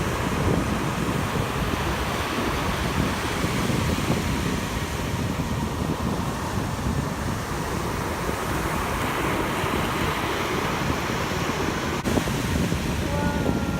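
Ocean surf washing in steadily, with wind rumbling on the phone's microphone.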